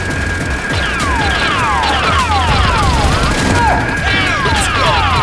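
Rapid falling-pitch 'pew' blaster-fire sound effects, several a second and overlapping, over background music with a steady bass and a held high tone.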